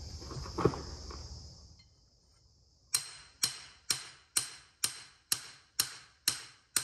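Hammer driving a marking stake into hard-packed ground, with steady, evenly spaced blows about two a second, starting about three seconds in.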